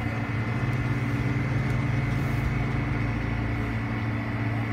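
Steady low mechanical hum with a fainter high whine above it.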